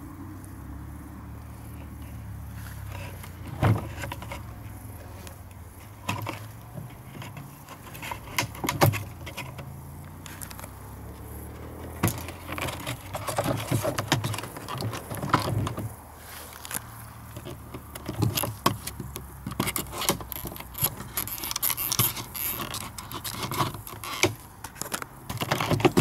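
Irregular plastic clicks, taps and scrapes of a Skoda Fabia's centre dashboard vent panel, which holds the hazard light switch, being pried and worked loose with a plastic trim tool and fingers. The clicks come thicker in the second half.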